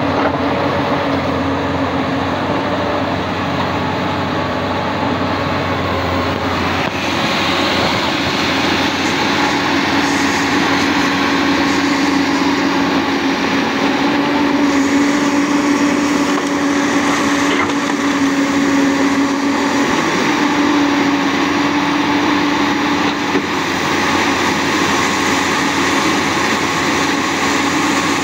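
Komatsu PC200 hydraulic excavator's six-cylinder diesel engine running under load while the machine swings and dumps rock. The steady drone grows stronger from about ten seconds in and eases back near the end.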